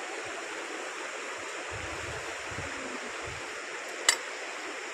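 Steady rushing of a flowing river. A single sharp click sounds about four seconds in.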